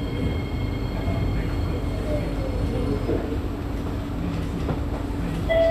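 Singapore MRT train running, heard as a steady low rumble with a faint whine from its traction motors that falls in pitch around the middle. A strong steady tone comes in suddenly just before the end.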